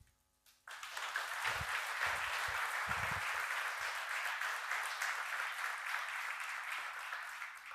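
Audience applauding after a talk, starting just under a second in and holding steady before easing off near the end, with a couple of low thumps underneath.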